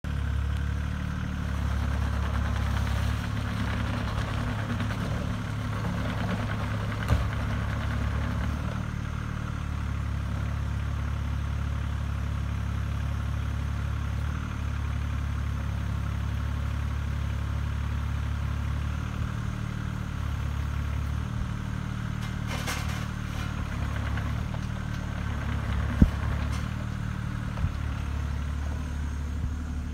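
Caterpillar 303C mini excavator's diesel engine running steadily while the boom, arm and bucket are worked on the hydraulics, its tone shifting now and then with the load. A few sharp knocks stand out, one about seven seconds in and two near the end.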